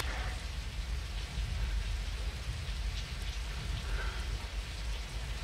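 Steady rainfall in a film soundtrack: an even hiss with faint scattered drips, over a continuous low rumble.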